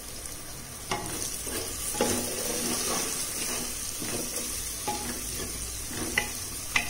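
Wooden spatula stirring tomato-onion masala frying in oil in a pressure cooker, over a steady sizzle, with several sharp knocks of the spatula against the pot, the loudest near the end.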